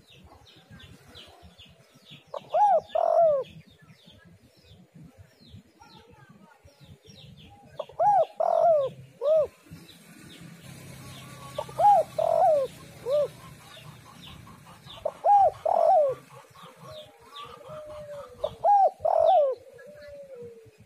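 Spotted doves (tekukur) cooing in five phrases of several hooting notes, one roughly every three to four seconds. Faint, rapid high chirping of small birds runs underneath.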